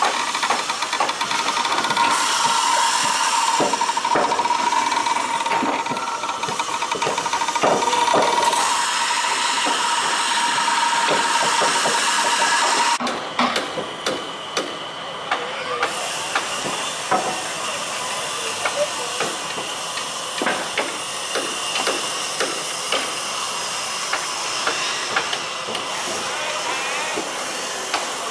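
Boatyard work noise during a slipway launch: a steady hissing din with a held high whine, which cuts off abruptly about halfway, followed by scattered knocks and clanks of metal and timber.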